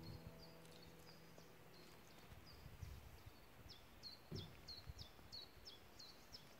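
Near silence outdoors, with a faint bird giving a steady series of short, high chirps, about three a second, some of them sweeping down in pitch, and a few soft low knocks.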